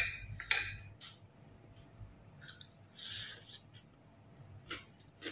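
Quiet eating sounds from a plate of biryani: a few sharp clicks and clinks of a utensil against the plate, the loudest right at the start, then scattered fainter ones.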